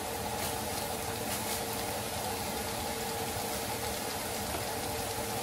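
Ground pork with carrots, bell pepper and green peas cooking in a frying pan, a steady sizzle, while a spatula stirs and scrapes through it. A steady hum runs underneath.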